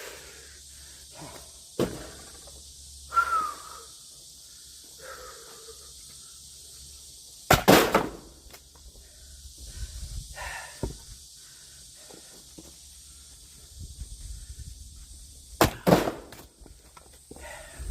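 Axe splitting firewood: a few sharp strikes spaced several seconds apart, the two loudest about eight seconds apart, with lighter knocks and shuffling between.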